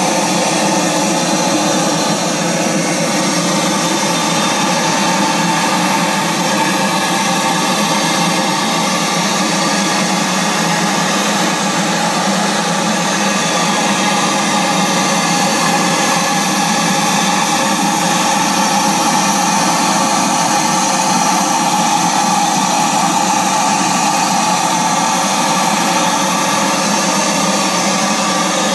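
Model paddle steamer's small live-steam engine running under steam: a loud, steady, even hiss and whir that never changes.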